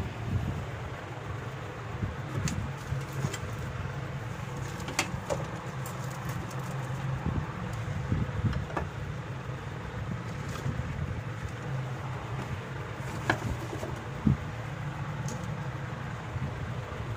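Steady low hum with an even background rush, broken by a few light clicks.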